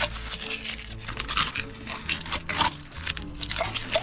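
Blue masking tape being peeled off a painted engine block and crumpled in the hand: a string of short, irregular rips and crinkles.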